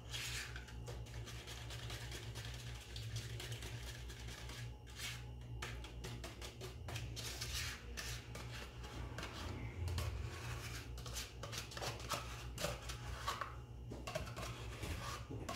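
A metal spoon scraping yogurt out of a plastic tub, with a crumpled foil lid crinkling in the hand, as many short scrapes and rustles. A steady low hum runs underneath.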